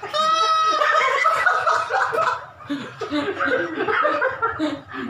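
Men laughing together, with a high, drawn-out laugh at the start.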